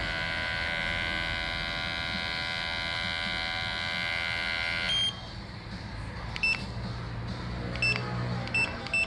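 Cordless hair clipper, just fitted with a new battery, running with a steady buzz for about five seconds, then switched off with a click; the clipper is working again. Several short electronic beeps follow near the end.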